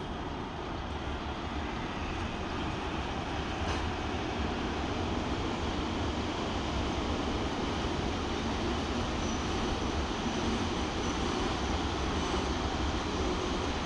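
Freight train arriving behind two 2ES4K twin-section electric locomotives, the locomotives and then the freight wagons rolling past close below: a steady rumble of wheels on rails that grows a little louder over the first few seconds and then holds.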